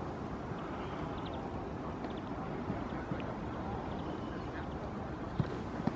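Steady outdoor background noise over a training pitch, with a few dull thuds of footballs being kicked, the two sharpest close together near the end.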